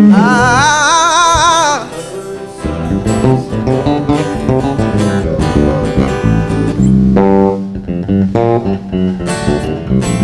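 A singer holds one long note with a wide vibrato through the PA, then electric band instruments come in about two and a half seconds later: guitar chords over a bass line, played loosely as a sound check.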